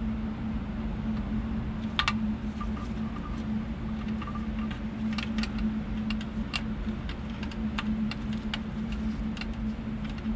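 Small clicks and light rattles of the yellow fuel-gauge wire's connector being worked onto its terminal on the back of a 1966 Ford Mustang's metal instrument cluster, scattered irregularly, over a steady low hum.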